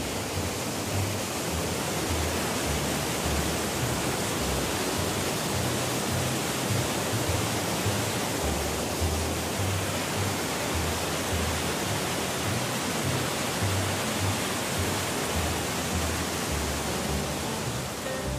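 Rushing water of a cascading waterfall and rapids, a steady, even rush of white water, with background music underneath.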